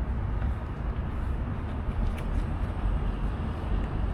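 Steady, low outdoor background rumble with no speech, and a faint click about two seconds in.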